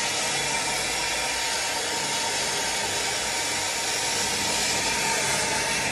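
Gas plumbing torch burning with a steady hiss and a faint steady tone underneath, its flame heating a fitting on a brass water riser for sweat-soldering.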